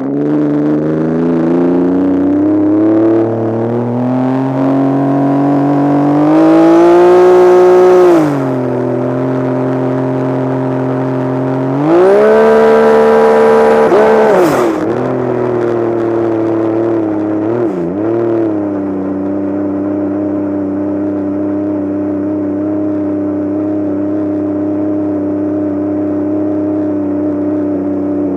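Turbocharged Sea-Doo personal watercraft engine revving up in two loud bursts, the second with a high whine. The revs then dip sharply twice, brief stumbles that are the engine's hiccup at 21 psi of boost. After that it settles to a steady, lower running speed.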